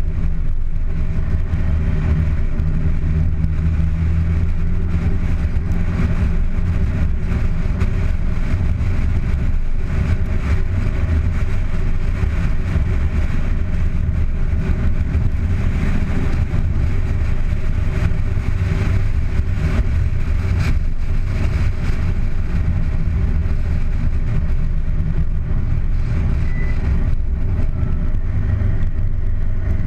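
Car engine running steadily while driving along a wet road, with a low engine hum under a constant rush of road noise.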